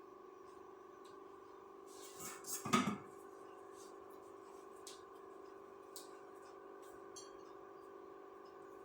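Kitchen clatter: a brief burst of handling noise, like dishes or containers being moved, about two seconds in, then a few faint clinks, over a steady hum.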